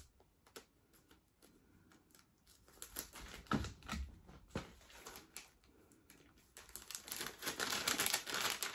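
Thin plastic shrink-wrap sleeve being handled and pulled open: faint crinkling and clicking, scattered at first and busier over the last couple of seconds.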